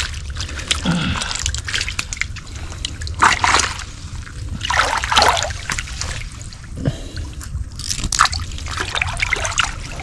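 Canal water splashing and sloshing as people wade and grope with their hands for fish in holes in the bank, in several irregular bursts, the strongest about three, five and eight seconds in.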